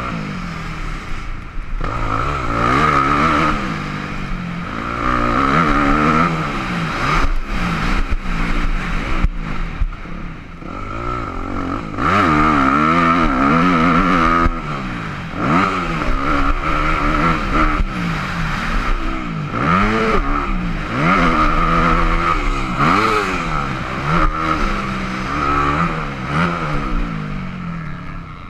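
Yamaha YZ250F four-stroke single-cylinder motocross bike racing, its engine revving up and backing off over and over as the rider works the throttle and gears. Sharp knocks and clatter from the bumpy dirt track come through now and then, heard from a helmet camera.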